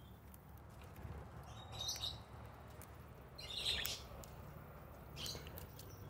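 Faint, short chirps from small parrots, the cockatiels and budgies of an aviary, a few of them spaced about a second and a half apart over a low steady hum.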